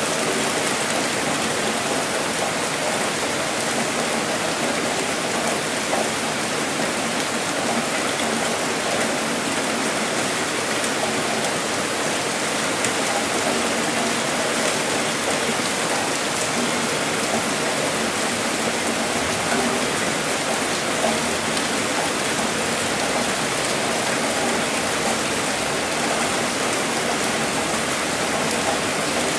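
Steady rainfall: an even, unbroken hiss of falling rain.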